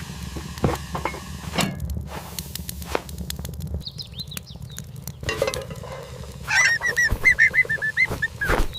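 Cartoon sound effects: a bird gives a quick run of about ten loud, honking calls near the end, with faint high chirps about four seconds in and scattered light knocks and clicks.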